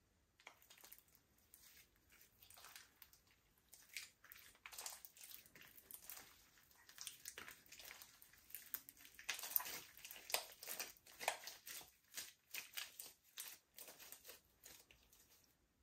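Slime being squished and mixed by hand: soft, irregular wet crackles and pops, getting busier and louder through the middle.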